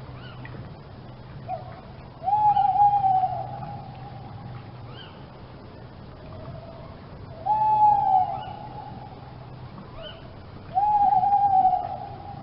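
A large bird's long, clear hooting whistle that rises and then sags slowly, given three times about four seconds apart, with faint short chirps of other birds behind it.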